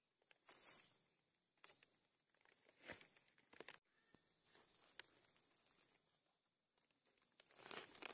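Faint, scattered scrapes and rustles of a knife blade and fingers working through wet leaf litter and soil to dig up a mushroom, over a thin steady high-pitched tone.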